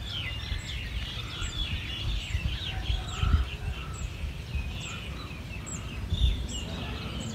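Several birds chirping and calling, with a high thin note repeating about once a second, over a steady low rumble.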